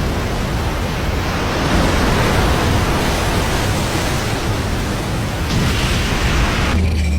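A sustained, loud rushing roar of noise from an anime battle effect, even throughout. It cuts off suddenly near the end, leaving a low hum.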